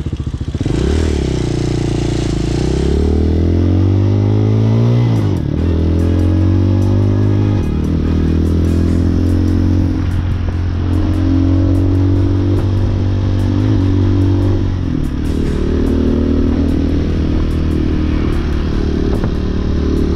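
Hawk 250 dual-sport motorcycle's single-cylinder four-stroke engine pulling away, its pitch climbing until a gear change about five seconds in, then running steadily at road speed with a few more shifts. Its valve lash has just been adjusted, and it sounds smoother, perhaps still slightly off tune.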